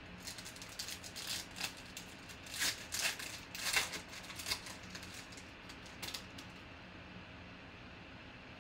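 Foil wrapper of a trading-card pack being torn open and crinkled in the hands: a run of crackling rustles for about six seconds, then it dies down to a faint steady hum.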